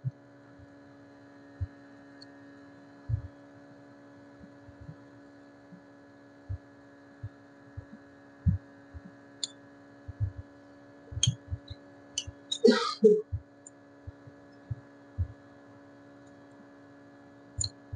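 Steady electrical hum of an OCA separator machine running, its vacuum pump holding a phone screen assembly to the heated plate. Soft low knocks and a few faint clicks come and go irregularly over the hum as the screen is worked on.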